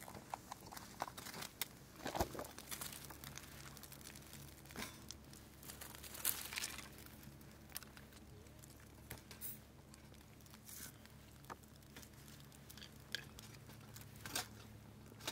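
Kindling and twigs being handled, snapped and fed into a small folding twig stove as the fire catches, with scattered light crackles and a few sharper snaps. A faint steady low hum runs underneath.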